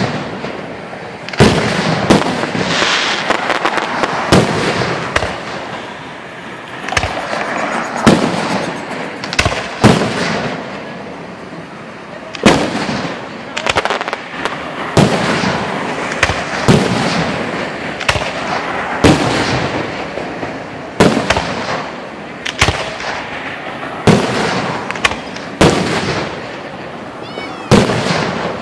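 Aerial firework shells launching and bursting overhead in a display: a steady string of sharp bangs, about one every second or two, each trailing off in an echoing rumble.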